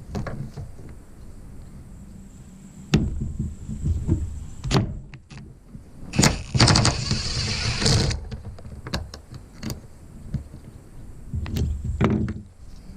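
Metal clicks and knocks from hand tools working on a pickup's tailgate hardware, with a harsh rasping burst lasting about two seconds in the middle.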